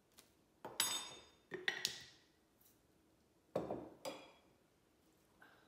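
Measuring spoon and spice containers clinking and knocking against a bowl as spices are spooned into a marinade: a few sharp clinks, some briefly ringing, in two clusters about a second and three and a half seconds in.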